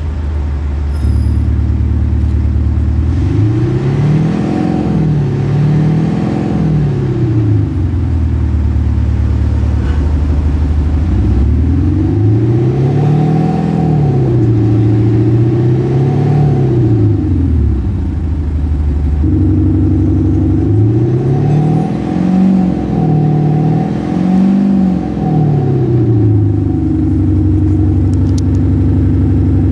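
Mercedes-Benz C220 at a standstill with a Kufatec sound booster fitted, its added speaker playing a synthetic engine note over the idle. The note swells and falls back three times as the engine is blipped, twice each time, then settles to a steady idle.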